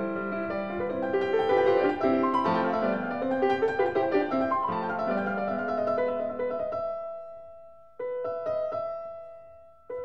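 Piano background music: a busy passage of notes that thins out and fades, then a chord struck about eight seconds in and left to ring down.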